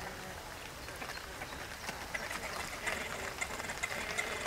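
Birds calling at a pond: quick chirps and ticks that grow busier from about halfway, over a steady outdoor hiss.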